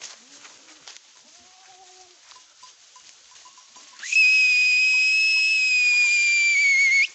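A loud, steady, high-pitched whistle starts suddenly about four seconds in and holds one note for about three seconds. It sags slightly in pitch just before it cuts off. Before it, goats give faint bleats.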